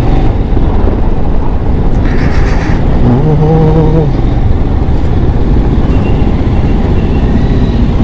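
Road traffic and steady low wind rumble from moving through city streets. About three seconds in, a vehicle horn sounds once for about a second.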